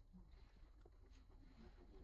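Near silence: faint background with a low rumble and a few faint ticks.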